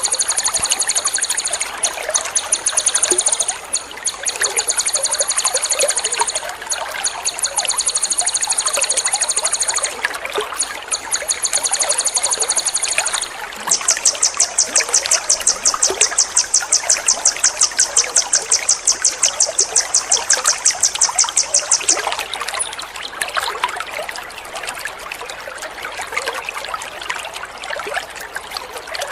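Water trickling steadily beneath a songbird's high, rapid trilled bursts ("tembakan"). There are several short runs of the trill in the first half, then one long run of about eight seconds, after which only the water is heard.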